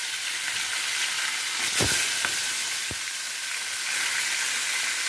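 Parshe fish frying in hot rice bran oil in a frying pan: a steady, loud sizzle, with a couple of short knocks about two and three seconds in.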